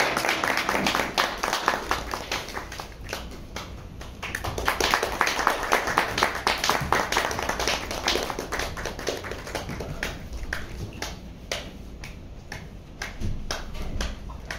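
Audience applause, dense at first and thinning to scattered claps in the last few seconds.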